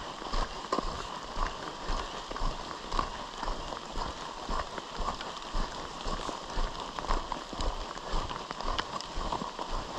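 A hiker's footsteps walking steadily along a road, about two steps a second, over a light hiss of rain.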